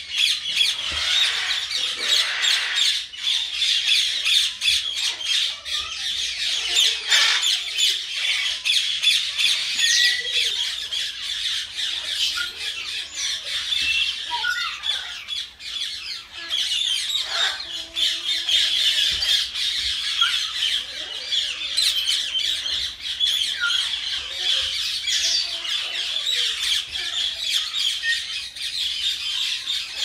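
Common myna giving a continuous run of harsh, rapid squawks and chatter, with a few short, lower notes mixed in.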